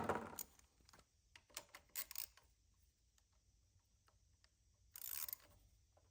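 Hand tools being handled while working at the generator's oil plug: a sharp knock at the start, a few light clicks about two seconds in, and a short scrape about five seconds in.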